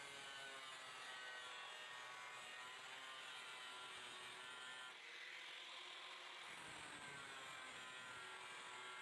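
Electric angle grinder with an abrasive cut-off disc cutting steel plate: a steady motor whine with grinding hiss, dipping briefly about five seconds in and then picking up again.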